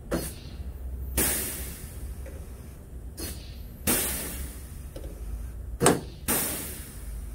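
Pneumatic rivet gun on an air hose setting 3/16-inch rivets: several sharp bursts of air hiss, some about a second long, with a loud crack about six seconds in.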